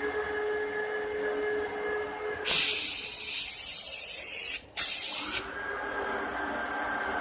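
CNC router's water-cooled spindles running with a steady whine. About two and a half seconds in, a loud hiss covers them for roughly three seconds, broken briefly in the middle.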